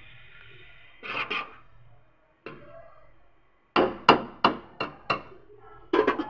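A metal spoon scraping through rice in an aluminium cooking pot, then a quick run of about five sharp metal knocks, with two more near the end.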